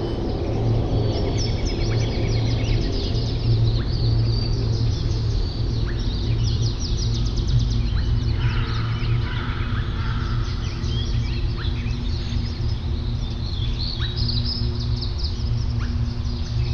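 Many songbirds chirping and trilling at once, overlapping high, quick calls throughout, with a lower, fuller call about halfway through. Under them runs a steady low hum.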